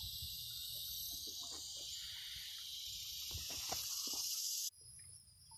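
Steady high-pitched drone of insects in the riverside trees, with a few faint knocks underneath; it cuts off abruptly about four and a half seconds in.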